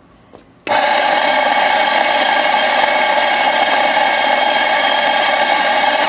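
Macap espresso grinder switched on about a second in and running steadily while grinding coffee beans: a loud, even motor whine that holds unchanged, measured at about 90 decibels.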